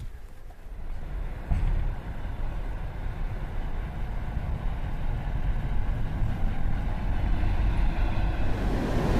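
City bus driving past on a snow-covered street: a low engine rumble that grows steadily louder as it approaches, with tyre hiss swelling near the end as it passes close.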